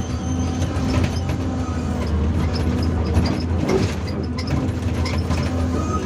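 Hyundai R480LC-9S excavator's diesel engine running steadily under working load, with scattered knocks and clatter as the machine sorts rocks.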